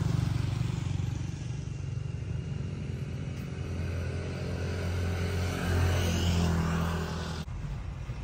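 A small motorcycle engine running, its pitch shifting up and down a couple of times, cutting off abruptly near the end.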